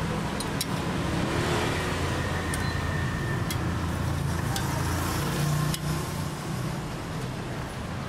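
Street traffic: a motor vehicle's engine running close by, a steady low hum, with a few faint sharp clicks over it.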